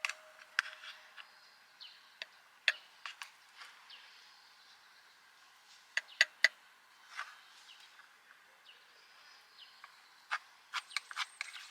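Scattered short bird chirps over a faint outdoor background, with sharp clicks and taps, a cluster of three about six seconds in and a quick run near the end.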